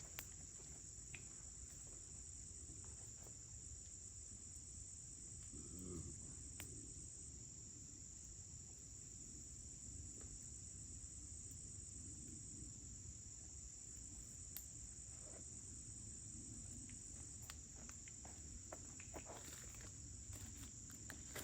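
Steady, high-pitched insect chorus in a summer woodland, with a few faint clicks and some brief rustling near the end.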